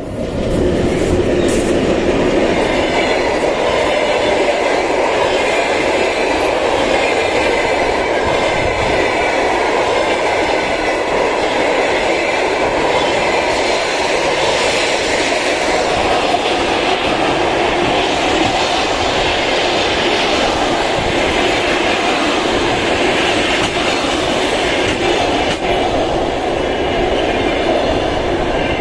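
Passenger train hauled by a 2ES4K electric locomotive passing close by: loudness jumps sharply as the locomotive goes past, then the coaches' wheels rumble and clatter over the rails at a steady level.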